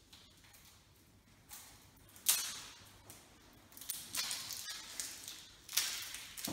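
A few brief scraping, rustling noises, the loudest about two seconds in.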